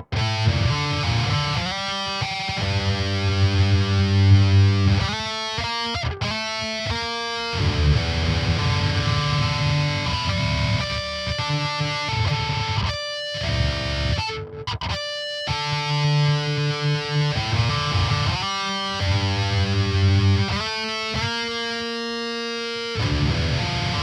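Distorted electric guitar, an Aristides, playing a metal riff. Stretches of heavy low palm-muted chugging alternate with held higher notes and octave shapes, with brief stops about six seconds in and again around thirteen to fifteen seconds.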